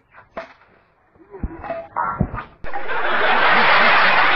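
A couple of sharp knocks and brief voice sounds, then, from about two and a half seconds in, loud, dense laughter.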